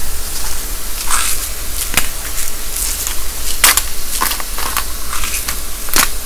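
Hand-twisted salt grinder worked in a series of irregular crunching twists, the mechanism sticking after jamming. A steady sizzle of mushrooms frying in butter runs underneath.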